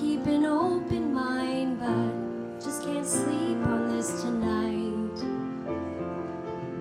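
Slow, gentle piano music with a woman's voice singing a soft melody over it.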